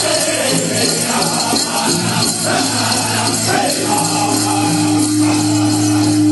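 Powwow chicken-dance song: a drum group drumming and singing, with the dancers' bells jingling, and a long held note from about halfway through.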